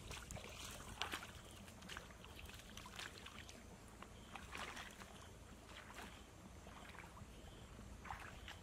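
Faint splashing of sandaled feet wading through a shallow, rocky stream, in short irregular splashes.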